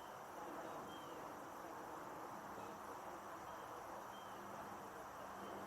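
Small brook babbling steadily, with faint short chirps repeating about once a second.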